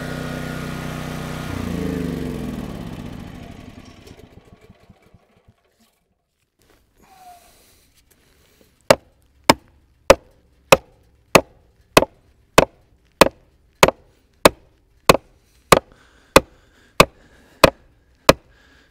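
A portable generator's engine running, then shut off and spinning down with a falling pitch within the first few seconds. From about halfway through, a hand sledge strikes the top of a steel rebar in a steady rhythm, about sixteen sharp blows a little under two per second, driving the rebar into the ground.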